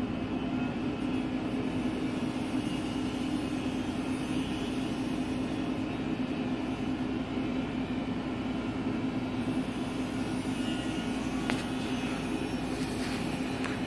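Steady machinery drone inside the cab of a Comansa 290 tower crane: a constant hum with one low, unchanging tone.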